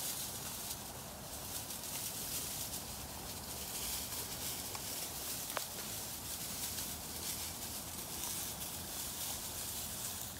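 German shorthaired pointer puppies scampering over straw bedding: a steady crackly rustle of straw under their paws, with one sharp click about five and a half seconds in.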